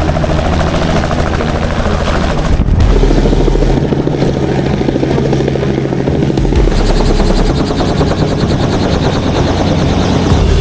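A loud engine running steadily, with a fast, even pulse and a deep hum.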